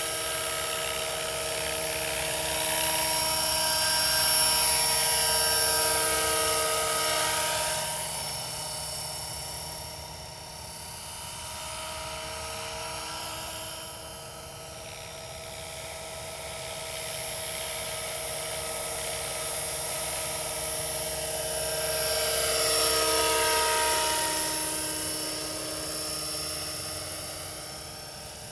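Scale RC model helicopter built as an AS350 flying, its motor and rotors making a steady high whine. It grows loudest twice as it passes close, the pitch dropping each time as it moves away.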